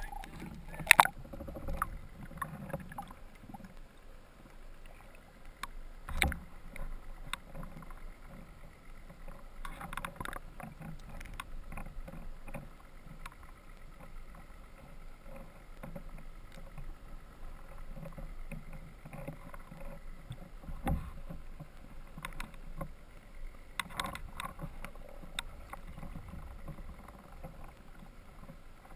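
Underwater and surface water noise picked up by a submerged camera: water sloshing and swirling around it under a faint steady hum, broken by several sharp knocks, the loudest about a second in and another about six seconds in.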